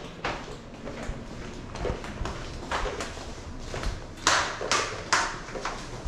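Scattered light taps and knocks, with a few short rustling noises in the second half, in a small room.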